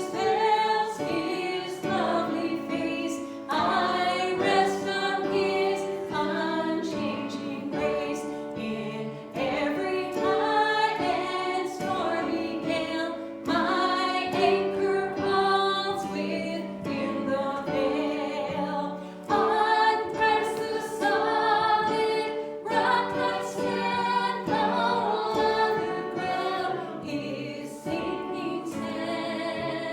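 Church congregation singing a hymn together, in slow sustained sung lines.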